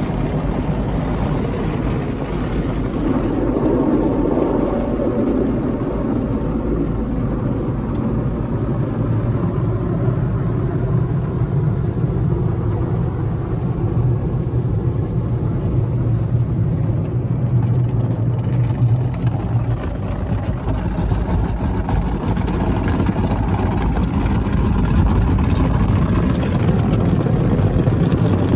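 Automatic car wash heard from inside the car: water and soapy foam spraying, and cloth wash brushes scrubbing over the windshield and body. Under it runs a steady low hum that is strongest for about ten seconds in the middle.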